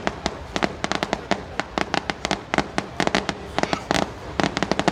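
Fireworks going off in quick succession: a dense, irregular string of sharp bangs and pops, several a second.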